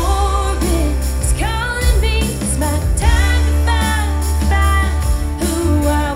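A pop song with a sung vocal line over a steady heavy bass, played through a JBL EON ONE MKII portable column PA speaker and picked up by a measurement microphone as a sound test.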